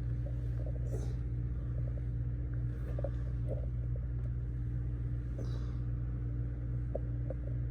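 Steady low machine hum with a faint steady tone above it, and a few light clicks and taps.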